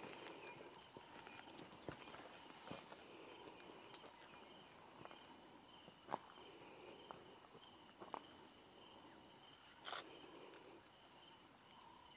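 Faint bush ambience of insects calling: a steady high trill under a short, higher chirp repeated about once a second. A few soft clicks and rustles break in, the loudest about ten seconds in.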